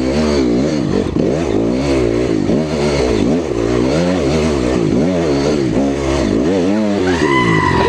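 Honda CRF 250R single-cylinder four-stroke dirt bike engine revving up and down in quick repeated surges, about twice a second, as the throttle is worked on a rough climb. A steady high-pitched tone comes in near the end.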